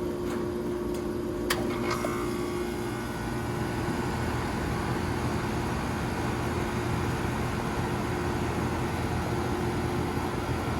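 Outdoor condensing unit of a 2023 Ducane 2-ton central air conditioner with a Copeland scroll compressor, running steadily: an even compressor hum and fan noise, with a couple of light clicks about one and a half to two seconds in.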